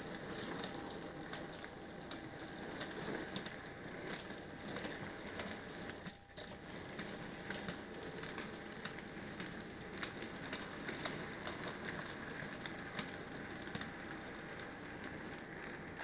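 Model railway goods wagons rolling past on the layout track, their wheels clicking irregularly over rail joints and pointwork, over a faint steady tone.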